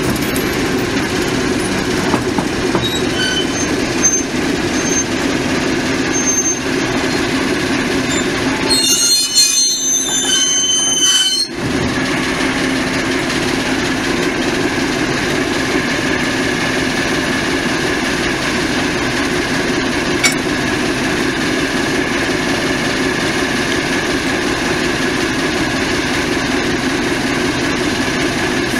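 Diesel shunting locomotive's engine running steadily at idle, with a brief high-pitched metallic squeal about nine to eleven seconds in.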